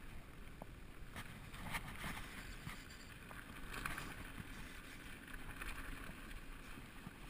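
2012 Specialized SX Trail mountain bike rolling down a dry dirt and rock trail, heard from a helmet camera: a steady rumble of tyres and wind with scattered clicks and rattles from the bike. Two brief louder hissing patches come about two and four seconds in.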